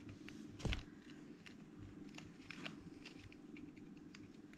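Faint clicks and crinkles of a pleated caravan blind's fabric and plastic bottom rail being handled while cord is threaded through, with one louder knock about a second in.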